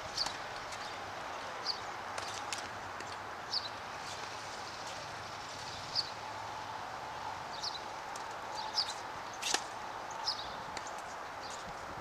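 Tennis balls struck back and forth in a rally on an outdoor hard court: short, sharp pops every one to two seconds over a steady background hum.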